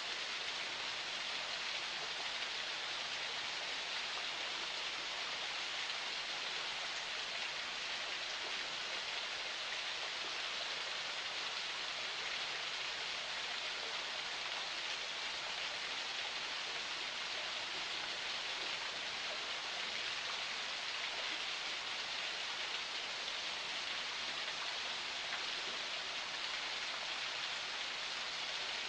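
Small forest spring flowing: a steady, even hiss of running water.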